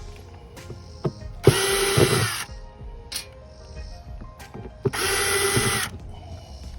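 Cordless power drill/driver running in two short bursts of about a second each, backing out the screws that hold a broken RV door holder to the trailer wall, with small clicks of handling between the bursts.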